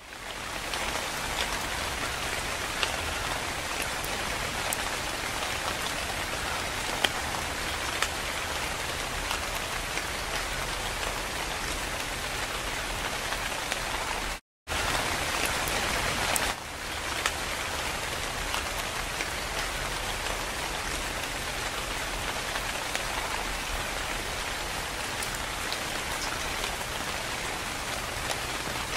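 Steady rain falling, an even hiss with scattered single drop ticks; it cuts out for a split second about halfway through, then comes back a little louder for a couple of seconds before settling again.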